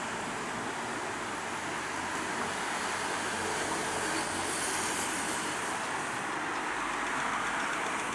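Steady road-traffic noise from cars passing on the road below, mixed with a Shonan Monorail suspended train running away on its rubber tyres; the noise rises a little in the second half.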